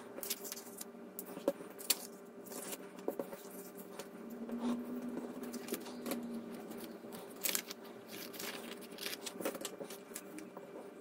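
Paper rustling and sliding on a tabletop as book pages are picked up, moved and folded by hand, with scattered light taps and scrapes, over a faint steady hum.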